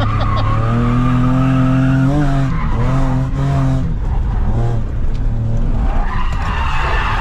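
BMW E30 drift car's engine heard from inside the cabin, revving hard with its pitch swelling and dipping, while the tyres squeal as the car slides. The squeal is strongest near the end.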